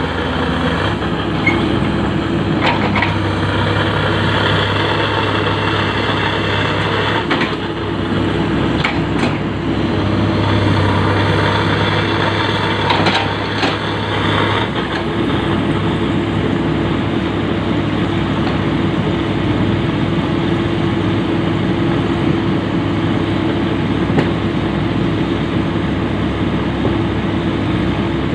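Komatsu PC200 excavator's diesel engine running steadily, with a few short knocks about a third and halfway through; about halfway through, the deep part of the engine note drops away and it runs on at a lighter, even tone.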